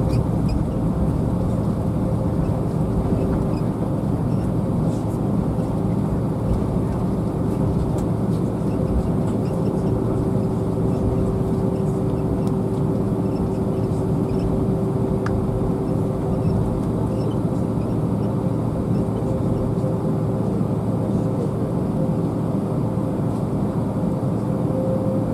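Inside an airliner's cabin while taxiing: the underwing turbofan engines at idle give a steady low rumble with a constant hum in it, mixed with cabin air noise.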